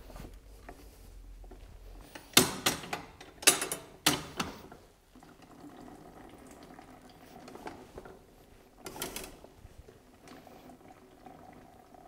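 Sheet-metal four-fold paper briquette press clanking and rattling as its frame and handles are worked by hand: a cluster of sharp knocks about two to four seconds in and another near nine seconds, with quieter handling noise between them.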